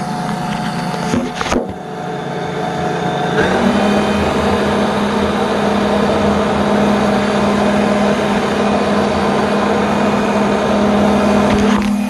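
Riding lawn mower running under a homemade fan rig, with a few handling knocks in the first two seconds. About three and a half seconds in, a louder steady hum sets in and holds until just before the end.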